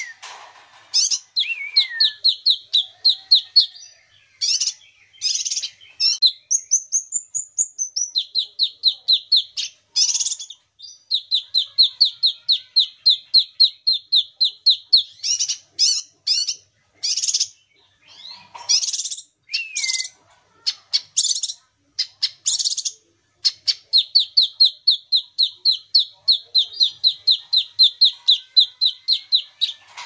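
A kinoi songbird singing: long, rapid trills of evenly repeated notes, broken by sharp higher chirps and one high whistled phrase that rises and falls.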